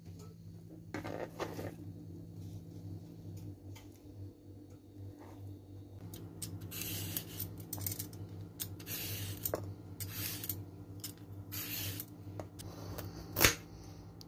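Vegetable peeler scraping along a carrot in a series of short strokes, over a low steady hum, with one sharp knock of a knife on a plastic cutting board near the end.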